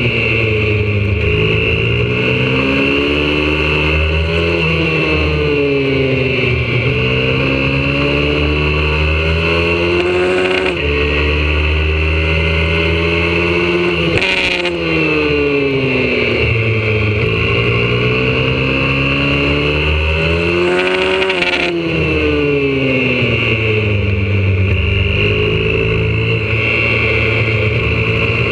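Single-cylinder engine of a YCF 125cc four-stroke pit bike, recorded on board under hard riding. Its pitch repeatedly climbs under acceleration and falls back, with a few sudden drops at gear changes.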